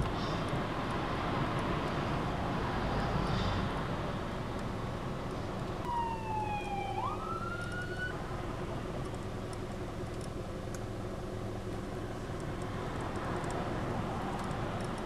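Steady low hum and hiss inside a parked car's cabin. About six seconds in, a short wailing tone dips and then sweeps up sharply.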